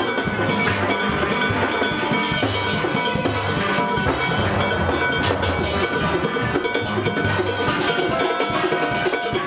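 Steel pan band playing live: many steel drums struck with mallets together, a dense ringing tune over a regular low bass-pan pulse.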